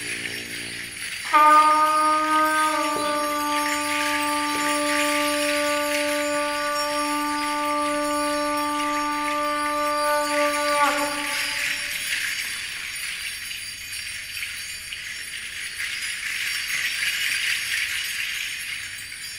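Free-improvised music: a steady jingling, rattling shimmer of small percussion, joined about a second in by a single held pitched note that stops about ten seconds later.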